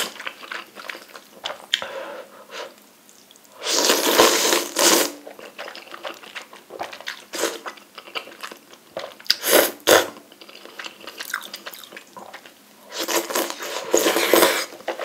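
Close-miked eating of instant ramen noodles: three long slurps, each a second or so, a few seconds apart, with wet chewing clicks in between.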